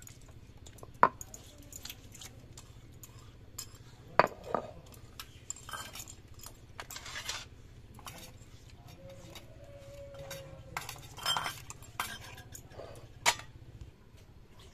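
Metal cookware and utensils clinking and knocking in scattered strikes, with a few short scrapes, as food is handled in the kitchen. A steady low hum runs underneath and stops near the end.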